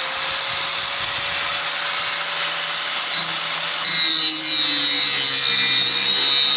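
Power grinder running at full speed, sharpening a steel tiller tine. About four seconds in it gets a little louder and takes on a higher ring, its pitch dipping slightly under the load as it works the metal.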